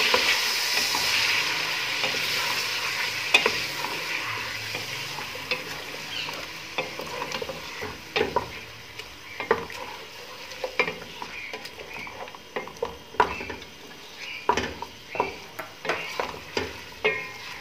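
Chicken pieces and ginger-garlic paste sizzling in hot ghee in a large pot while a wooden spatula stirs and turns them, knocking against the pot. The sizzle fades gradually, and the spatula's knocks come more often in the second half.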